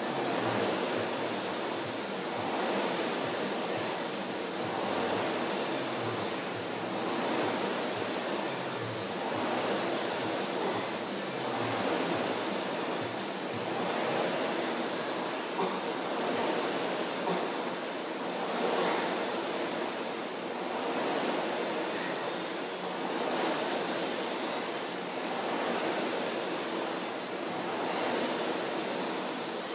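Concept2 indoor rower's air-resistance flywheel whooshing with each drive stroke, swelling and fading about once every two seconds under steady rowing.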